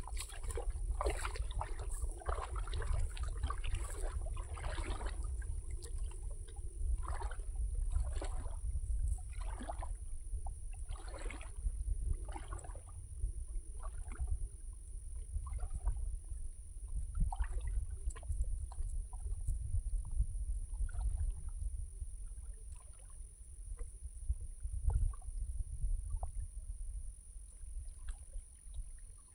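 Water splashing and sloshing in short, irregular bursts, busier in the first half and sparser later, over a steady low rumble.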